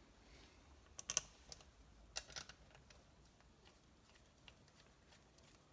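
A few light clicks and taps of small parts being handled during engine assembly: a quick cluster about a second in and another about a second later, over near-silent room tone.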